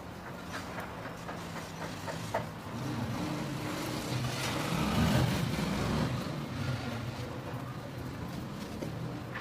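A motor vehicle passing, growing louder to a peak about halfway through and then fading, over a low steady hum, with a few light clicks early on.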